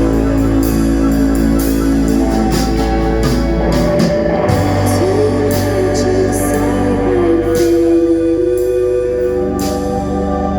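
Rock band playing with guitar, bass and drums, with a singing voice holding and sliding a note in the middle.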